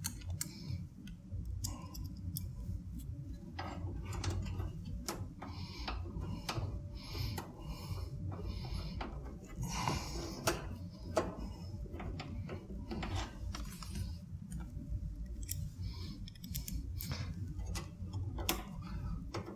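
Irregular small clicks and metallic ticks of screws and a screwdriver being worked against a computer case's metal frame, over a low steady hum.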